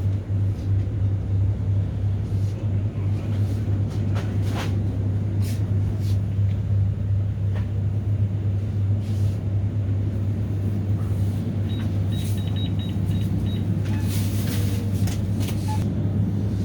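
A heavy engine runs steadily with a low drone, with scattered clicks and knocks and a short run of high beeps about twelve seconds in.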